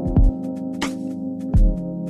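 Background electronic music with a steady beat: held synthesizer chords over deep kick-drum thumps and short hissy percussion hits.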